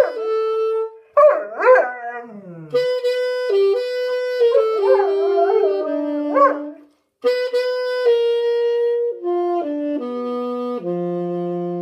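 A saxophone plays long held notes while a Bernese mountain dog howls along in wavering, sliding pitches. The dog drops out about seven seconds in, and the saxophone carries on alone with notes stepping down in pitch.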